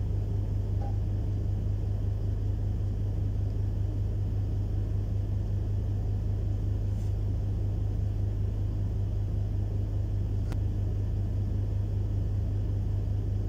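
A steady low rumble that holds even throughout, with a faint click about ten and a half seconds in.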